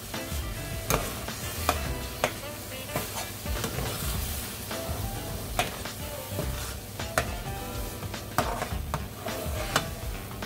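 Metal spoon stirring thick eggplant sauce in a skillet, scraping and clinking against the pan at irregular moments, about once a second, as the sauce sizzles. Background music plays underneath.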